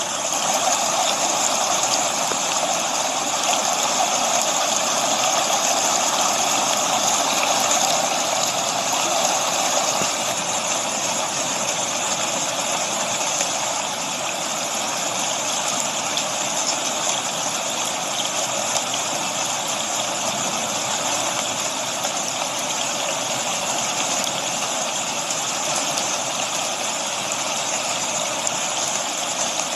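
Steady rain mixed with the rush of a waterfall, an even hiss with no breaks, easing slightly about ten seconds in.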